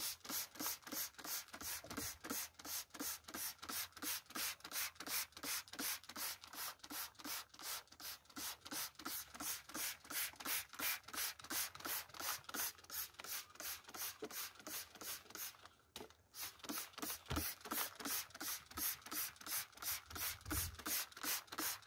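Plastic trigger spray bottle squeezed over and over, giving a quick run of short spray hisses at about three a second, with one short break about three quarters of the way through.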